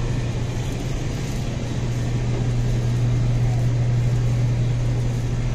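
Steady low hum under a constant wash of background noise, the ambience inside a grocery store's meat section.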